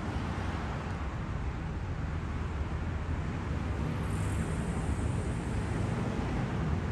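Steady low rumble of vehicles on the street, growing a little louder toward the end as a car drives past.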